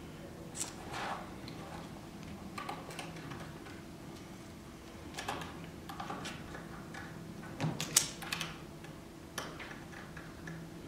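Small screwdriver and tiny screws ticking and clicking against an iPhone 4S's metal chassis as its six side screen screws are tightened: scattered light clicks, the sharpest about eight seconds in, over a faint steady hum.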